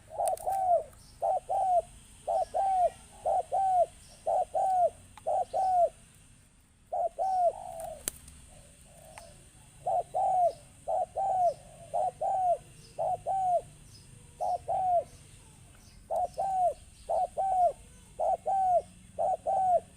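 Decoy spotted dove cooing: a long run of short, low coos in pairs, about two a second, breaking off briefly twice before carrying on.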